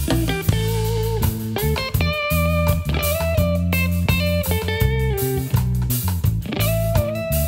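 A funk band plays an instrumental passage: an electric guitar holds lead notes with a slight waver over a bass guitar line and a drum kit beat.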